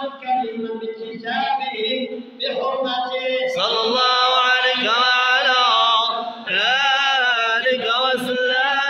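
A group of men chanting madih, Arabic praise poetry for the Prophet, together and without instruments, on long, wavering, ornamented notes. The chant swells louder for a few seconds in the middle.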